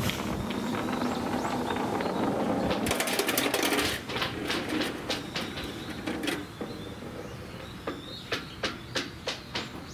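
Small plastic balls rolling down a rough concrete slope, a steady rumble, with a burst of clattering clicks about three seconds in as they knock into a plastic toy garage and into each other. Near the end comes a string of light knocks, about three a second.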